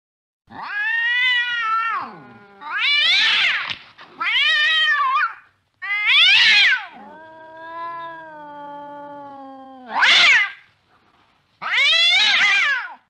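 Cat meowing: a string of about seven loud, drawn-out calls, most rising then falling in pitch. In the middle is one longer, lower wail of about three seconds.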